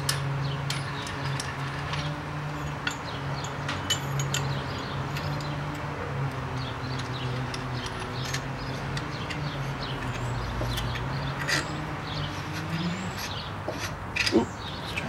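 Scattered small metal clicks and ticks of a screw-type brake caliper piston compressor being turned by hand, pushing the piston back into the caliper. Under it runs a steady low hum that rises in pitch and stops near the end.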